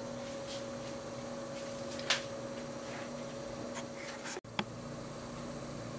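Steady low electrical hum and room tone with a few faint clicks and light handling rustles; the sound cuts out for an instant a little over four seconds in, at an edit.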